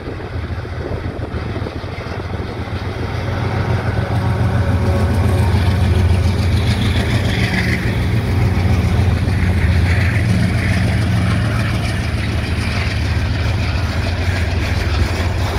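Two GE C36-7i diesel-electric locomotives with 16-cylinder GE diesel engines pulling a freight train away. A deep, steady engine drone swells about four seconds in as the locomotives come alongside, and near the end the hopper wagons roll past.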